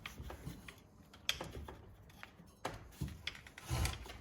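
Scattered light clicks and knocks of a string-trimmer power head and shaft assembly being handled and tilted to seat the alignment bolt, with a duller knock near the end.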